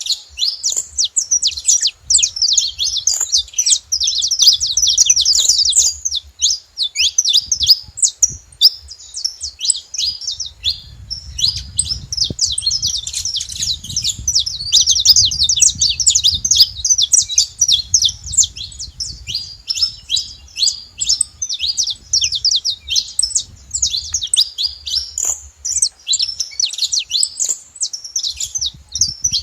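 Saffron finches chirping at a feeding spot: a dense, continuous chatter of rapid, overlapping high chirps from several birds.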